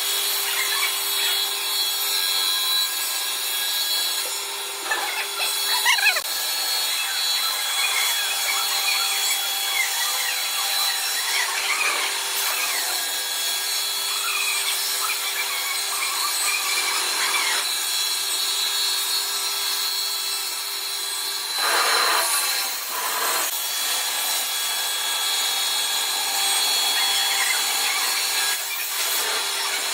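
Sawmill blade cutting through wood: a steady rasping hiss with a constant high tone running under it. A wavering squeal rises and falls through the middle stretch, and the cut turns briefly louder and choppier about 22 seconds in.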